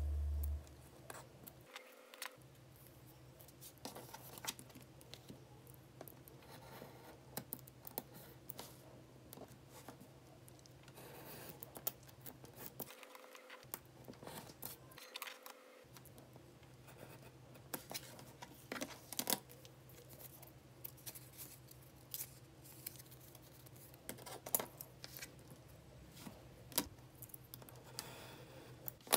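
Craft knife blade cutting paper along a clear acrylic ruler on a cutting mat: quiet, scattered scratching strokes with small clicks as the ruler and paper are moved.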